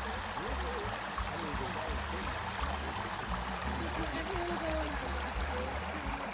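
A creek running high, its water rushing and trickling steadily, with an on-and-off low rumble underneath.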